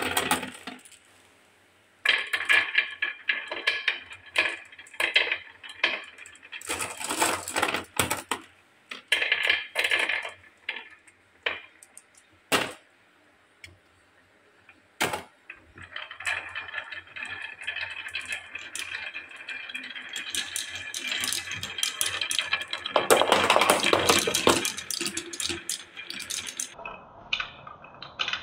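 Many small coloured balls rolling along a wooden rail and down wooden spiral tracks, clicking against the wood and each other. Rattling runs and a few sharp knocks come and go in the first half. About halfway through it becomes one dense, continuous clatter, loudest about two-thirds of the way through.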